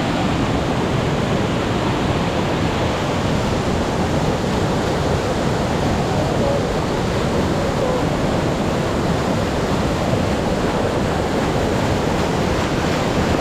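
Waterfall close by: a loud, steady rush of falling water with no breaks.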